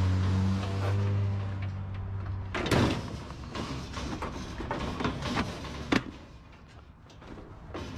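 A gutted washing machine being pushed onto a metal trailer bed: a steady low scraping drone, then a loud clunk a little under three seconds in as it lands. Lighter knocks and rattles of its loose plastic panels follow, with a sharp knock about six seconds in.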